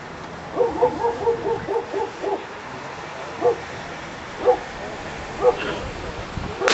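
A dog barking: a quick run of about eight short barks, then three single barks about a second apart. A sharp crack sounds at the very end.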